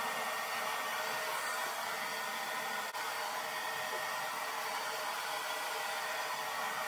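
Handheld hair dryer with a concentrator nozzle running steadily while drying hair: an even rushing hiss with a faint steady whine, dipping for a moment about three seconds in.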